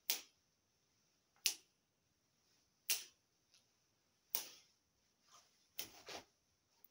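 Finger snaps keeping a slow beat, about one every second and a half, with the last few softer and closer together.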